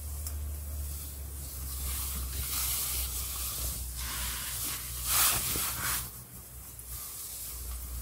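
A soft rushing hiss that swells and fades, loudest about five seconds in, over a steady low hum.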